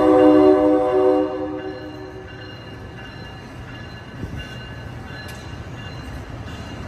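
Train horn sounds one chord-like blast about a second and a half long, then the bilevel passenger cars of an Amtrak Capitol Corridor train rumble steadily past as it pulls out.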